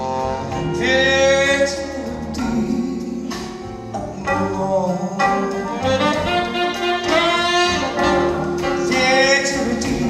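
Live performance of a slow pop ballad: a male singer holding long, wavering notes over a band of piano, keyboards, drums and saxophone.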